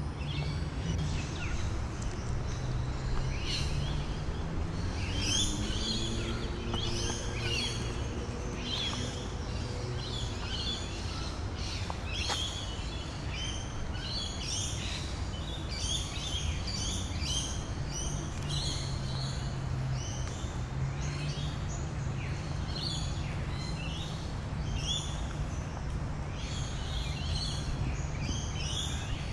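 Many birds chirping and calling in quick, short notes, over a steady low hum of outdoor background noise.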